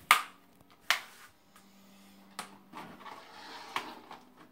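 Plastic Blu-ray case being handled: two sharp clicks about a second apart, then a softer click and a stretch of rustling packaging with a light knock.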